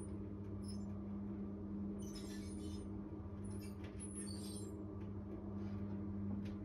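Steady low hum in a small room, with faint rustling and light scratching about two seconds in and again around four seconds in as a backpack is handled at a desk.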